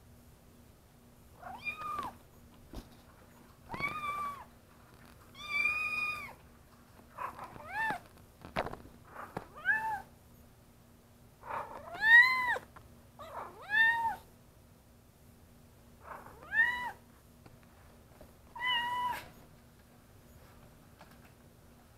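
Young kittens meowing over and over, about a dozen high meows one every second or two, each rising and falling in pitch. A couple of soft knocks fall between the meows.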